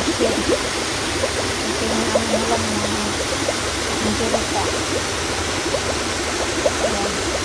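Shallow seawater lapping and gurgling at the shoreline, a steady rush with many small splashes.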